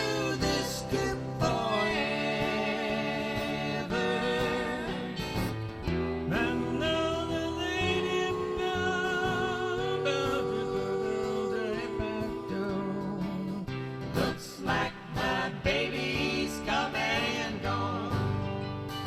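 Group of voices singing in harmony over acoustic guitar, with long held notes sung with vibrato.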